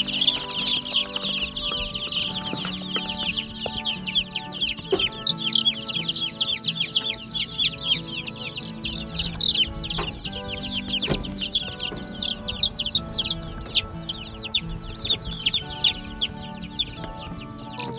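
A brood of week-old Freedom Ranger meat chicks peeping constantly, many short high falling peeps overlapping, growing louder and more separate in the second half. Background music with held notes plays underneath.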